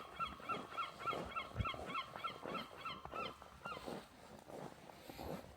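Footsteps crunching through snow at a walking pace. Over them comes a rapid run of short, high chirping calls, about four a second, which stops a little past halfway.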